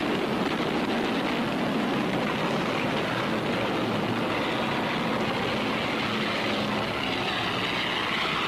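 Steady, noisy drone of A-20 Havoc attack bombers' twin radial engines during a low strafing run over the target.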